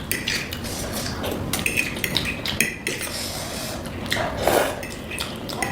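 Eating utensils clinking and scraping against a bowl in irregular, quick clicks.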